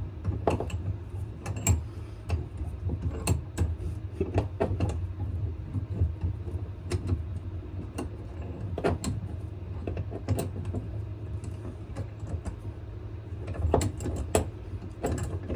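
Irregular clicks and knocks of a knife being handled and hand-sanded in a small swivel vise, over a steady low hum.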